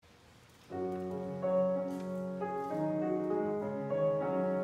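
Grand piano playing slow, sustained chords that begin about three-quarters of a second in, each chord left to ring as the next is struck.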